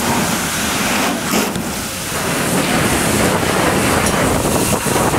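Loud, steady rushing noise of a fire hose water jet and a large building fire burning, with a short dip in level about one and a half to two seconds in.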